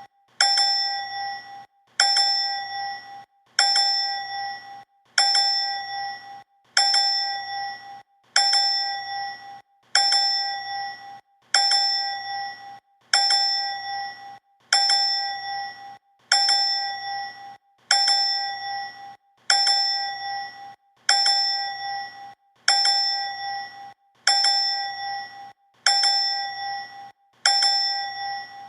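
A bright 'ding ding' bell sound effect, looped about once a second. Each repeat is a clear struck ding and a softer second ding that ring briefly and die away.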